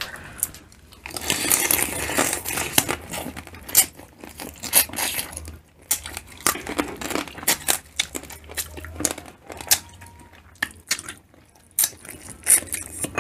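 Close-up eating of seafood boil: crab and shrimp shells cracking and tearing by hand, with chewing. A dense stretch of crackling about a second in, then scattered sharp snaps and clicks.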